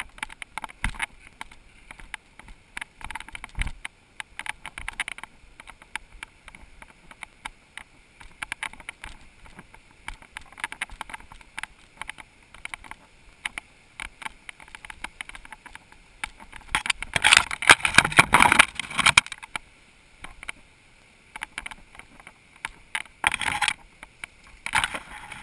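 Mountain bike rattling and clattering over a rough trail, with a louder stretch of rushing, scraping noise about two-thirds of the way through.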